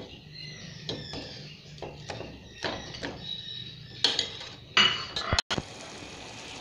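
A steel spoon clinks against a plate and the rim of a metal pot as gulab jamuns are spooned one by one into warm sugar syrup: a string of light clinks and taps, the loudest about five seconds in. The sound then cuts out sharply for an instant, leaving a faint steady hiss.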